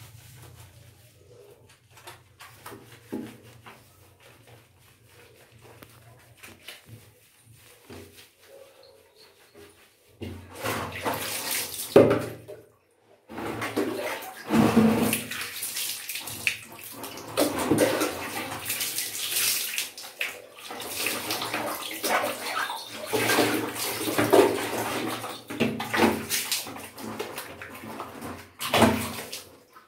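Water splashing and sloshing as a wet cat is washed by hand at a tub of water. It is quiet for about the first ten seconds, then goes on almost without a break.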